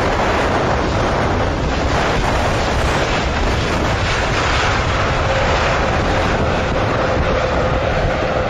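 Boeing 787 Dreamliner's engines in reverse thrust on the landing rollout: a loud, steady roar. A faint steady whine joins about halfway through, and the roar cuts off suddenly at the end.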